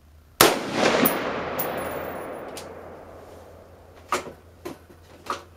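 One loud shot from a DPMS M4-style AR-15 carbine, its report echoing and dying away over about two seconds. Three light clicks near the end.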